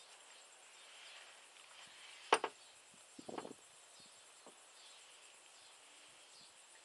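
A single sharp knock about two seconds in, and a brief scuffing knock a second later, over a faint steady outdoor hiss.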